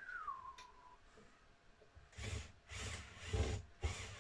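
A power drill driving screws into wooden posts in four short bursts, starting about two seconds in, after a brief whine that falls in pitch at the start.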